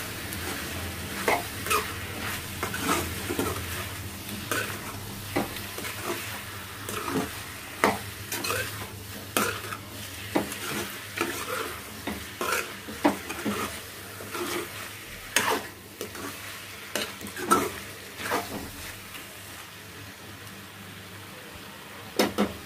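A spoon stirring chicken in a tomato masala in a kadai, scraping and clinking against the pan over a steady sizzle. The stirring stops a few seconds before the end, leaving only the sizzle, and two quick knocks on the pan close it.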